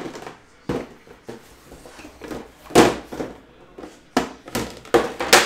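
Handling noise from card boxes and packaging: an uneven run of knocks, bumps and rustles, the loudest about three seconds in and again just before the end.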